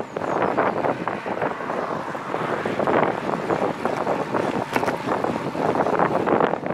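Wind buffeting the microphone of a bike-mounted camera while the road bike rides at speed: a loud, gusting rush of noise.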